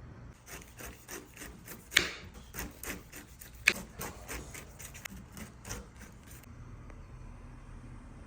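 Irregular light knocks and clicks, as of objects being handled, with two sharp louder knocks about two seconds in and just before the middle; they stop about six and a half seconds in.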